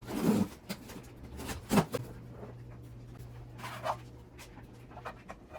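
Handling noise: a few knocks and clicks with some rustling, over a steady low hum. The loudest knocks come right at the start and a little before two seconds.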